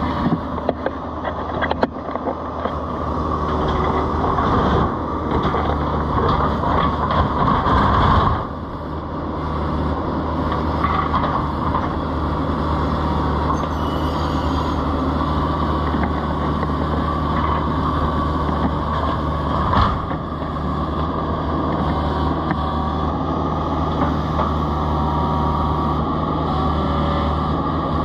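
Kubota KX71 mini excavator's diesel engine running steadily. It gets louder for a few seconds before dropping back about eight seconds in, then runs on evenly.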